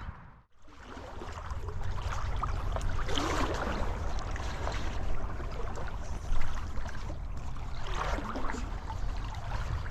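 Steady rush of a river's flowing water, with a low rumble underneath, on an action camera's microphone. The sound drops out briefly about half a second in, then swells a little twice.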